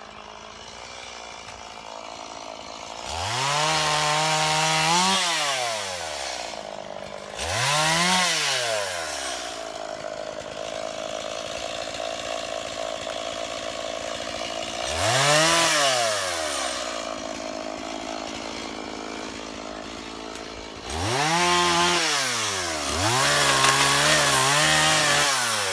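Two-stroke chainsaw revved up to high speed and back down about five times, running at a lower idle between the revs.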